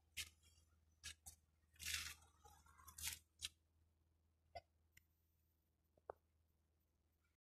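Near silence broken by about nine brief, faint clicks and rustles, the strongest around two and three seconds in: handling noise as someone moves about with the camera in a car's cabin.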